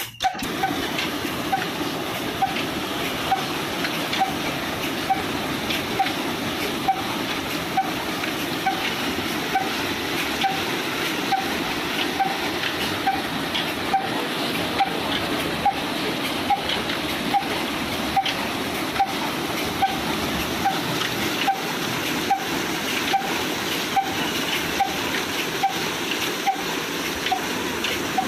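Water gushing steadily out of three pump outlet pipes into a tank. Through it comes the slow, even beat of the old 35 HP Ruston Hornsby diesel engine that drives the pump, about once a second.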